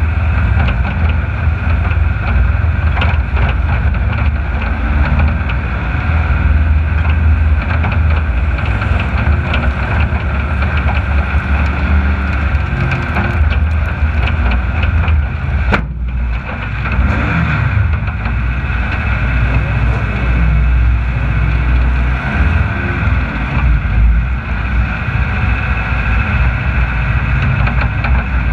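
Racing vehicle running at speed, a steady deep rumble with wind buffeting the microphone.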